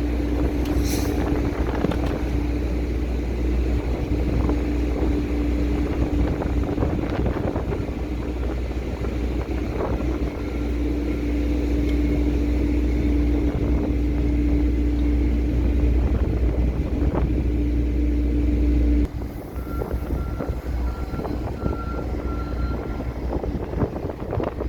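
Heavy machinery of a ship's grain unloading running steadily: a low rumble under a constant hum. About three quarters of the way in, it cuts off abruptly to a quieter mechanical running sound with a faint high whine.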